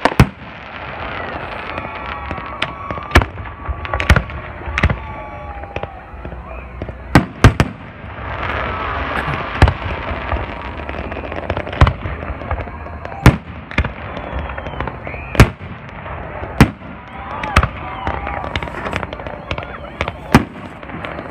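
Aerial fireworks shells bursting in a display: sharp loud bangs at irregular intervals, roughly one every second or two, some in quick pairs.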